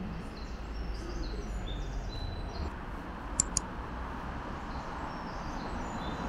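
Steady ambient background noise with faint, short, high chirps like birds scattered through it, and two sharp clicks in quick succession about halfway through.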